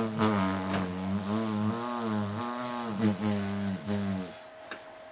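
A man's long, low moan that wavers up and down in pitch with only brief breaks, stopping about four seconds in. A faint steady hum remains after it.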